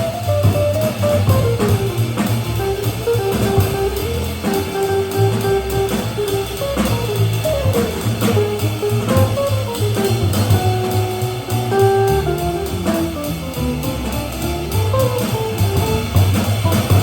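Jazz quartet playing at a medium swing: a guitar plays a single-note improvised line over walking upright bass and a drum kit keeping time on the cymbals.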